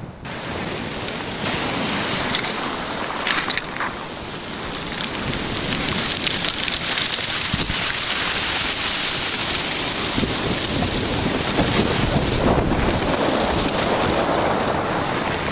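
Sea surf breaking and washing ashore, with wind rumbling on the microphone.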